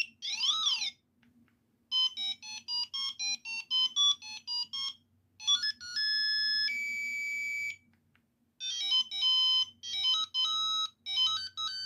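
Ringtones of an old Qualcomm cellphone played one after another as short, buzzy electronic tunes. In the first second there is a quick sweep up and down in pitch. Then come a rapid melody of short beeps, a pair of held steady tones, and another fast beeping melody near the end.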